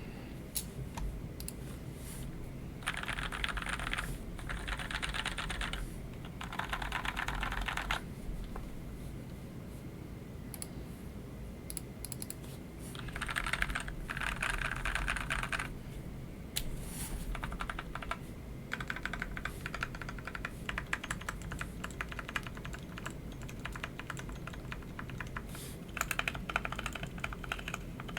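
Typing on a Keychron C2 mechanical keyboard with lubed Otemu Sky Blue tactile switches and stock keycaps: rapid runs of key clacks in bursts of a few seconds with short pauses between. The overall tone sounds a lot like a rain stick.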